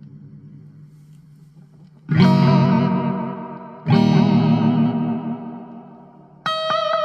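Electric guitar played through a Spaceman delay pedal: a fading tail, then a chord struck about two seconds in and again about two seconds later, each ringing out and dying away through its delay repeats. Near the end a brighter, higher chord is struck and rings on.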